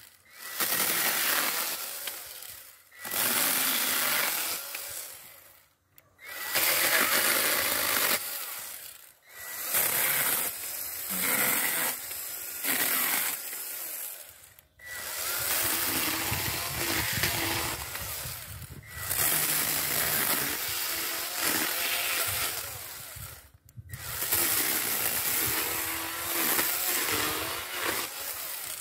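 A Worx WG324E 20 V cordless mini pruning chainsaw running as its chain cuts through tree branches, in about six runs of a few seconds each with short stops between them.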